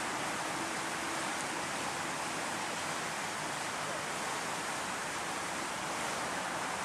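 Steady, even rushing background noise of a city street, with no distinct sound from the tram standing out.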